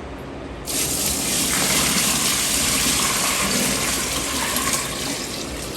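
Water gushing steadily into a washing machine tub as it fills for the final rinse, starting suddenly under a second in.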